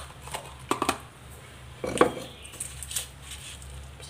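Stone pestle knocking against a stone mortar as it is picked up among the chillies and garlic: a few separate knocks, the loudest about two seconds in.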